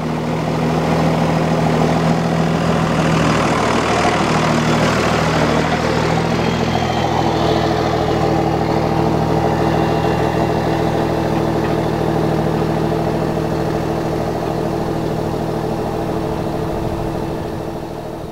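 Vehicle engine idling close by, a steady hum whose tone shifts about seven seconds in and that fades near the end.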